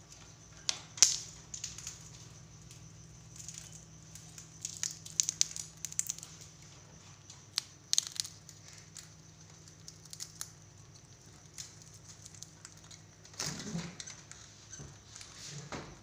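Indian ringneck parakeets cracking and crunching peanut shells in their beaks: irregular sharp cracks, loudest about a second in and in a cluster from about five to eight seconds in, over a steady low hum.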